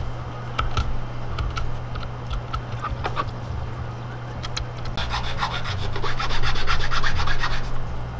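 Utility-knife blade shaving and scraping a carved wooden lure body, heard as scattered small cuts and ticks. About five seconds in, a small file starts rasping back and forth in quick, even strokes between the wooden ribs.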